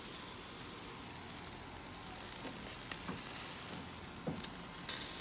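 Chicken leg quarters sizzling on a charcoal grill grate as their juices run down onto the coals, a steady hiss with a few sharp crackles in the second half.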